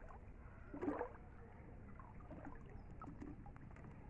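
Faint water sloshing around a person wading in shallow water, with one brief louder splash about a second in.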